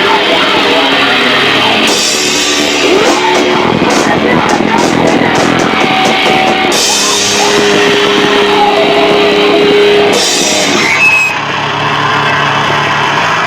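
Loud live rock band with electric guitar and drum kit, including cymbal crashes and a held guitar note, played in a garage. The sound is harsh and distorted because the camcorder's microphone is overloaded by the volume. The music thins out about eleven seconds in.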